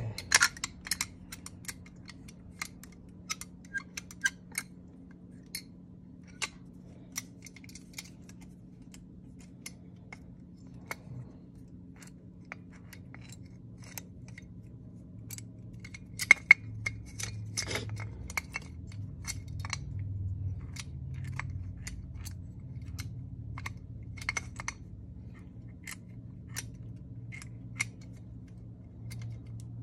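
Small metal parts of an Autolite 2100 carburetor clicking and clinking as they are handled and fitted by hand: irregular sharp ticks and taps, a few louder knocks about two-thirds of the way through. A steady low hum runs underneath.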